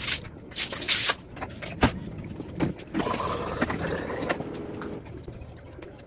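Eating sounds: fingers working rice and chicken on a ceramic plate, with mouth and chewing noises in short hissy bursts and a sharp tap against the plate near two seconds in. A steadier rushing noise lasts a couple of seconds in the middle.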